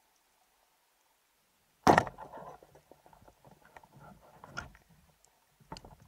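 Band-powered speargun fired underwater: one sharp, loud crack about two seconds in as the rubber bands release the shaft into a fish, followed by scattered knocks and rattles of the shaft and shooting line.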